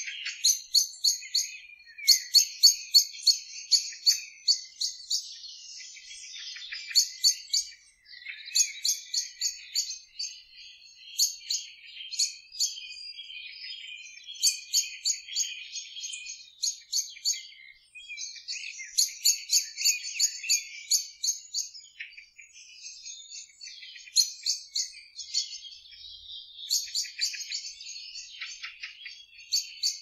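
Evening bird chorus: softer warbling throughout, with one bird repeating quick runs of sharp, clicking notes every couple of seconds.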